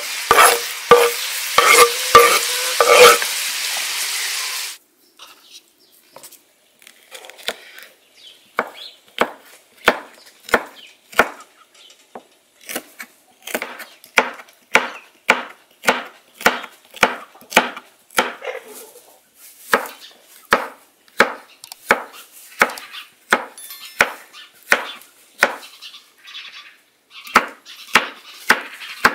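Chicken pieces frying in oil in a saj, loud sizzling with a few knocks as chopped tomatoes are tipped in; it cuts off after about five seconds. Then a chef's knife chopping green pepper on a wooden cutting board: steady chops, a little over two a second, with a couple of short pauses.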